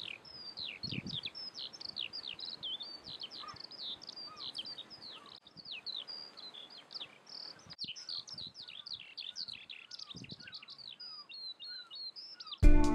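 Several songbirds singing together in a dense chorus of rapid chirps and falling whistles. Near the end, loud electronic music with a heavy beat cuts in suddenly.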